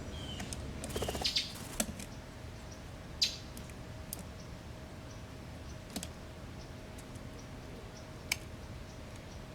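Scattered sharp taps on a clear plastic window bird feeder, with a few short bird chirps in the first second; a faint steady hum underneath.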